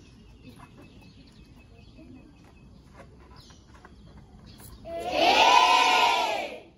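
A group of schoolchildren shouting together in one long, loud call near the end, after several seconds of low background with faint clicks.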